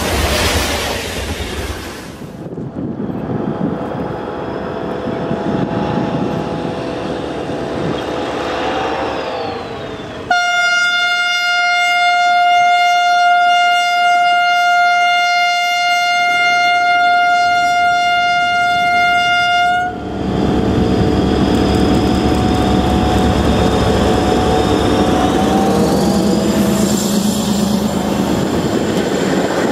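ARST LDe 501 diesel-electric locomotive approaching with its engine running, then sounding one long steady horn note for about ten seconds. It then passes close by, its engine louder, while its narrow-gauge coaches clatter over the rails.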